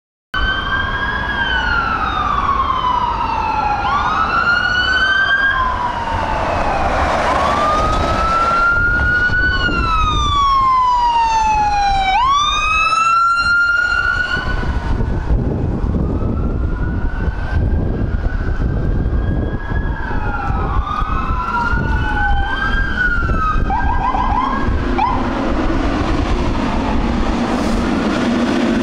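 Electronic sirens of fire trucks and a battalion chief's pickup responding, several wailing at once in slow rising-and-falling sweeps, with a quick run of short chirps in the last third. Low rumble of the passing vehicles underneath, and a lower steady tone joins near the end.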